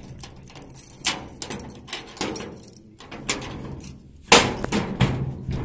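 Keys jangling on a ring and a round steel padlock being unlocked, clacking against the bolt and hasp of a metal door. There is a run of sharp metallic clicks, with the loudest clack about four seconds in.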